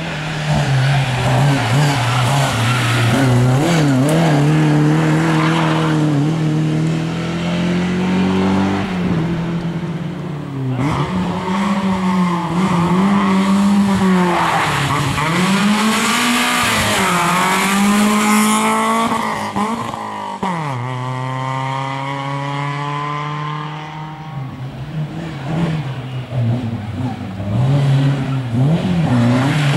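Rally cars at competition speed, their engines revving hard and falling back between gear changes as they pass one after another. About two-thirds of the way through, one engine climbs steadily through a gear under full acceleration.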